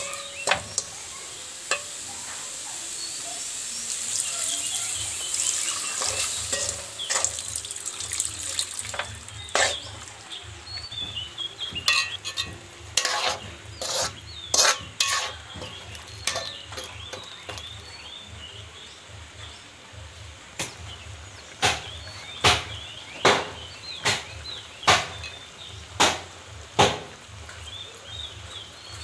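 A metal spatula scraping and knocking against a large metal pan as chicken curry is stirred, over the sizzle of the frying curry. The strikes come irregularly at first, then in a fairly regular run of knocks in the second half.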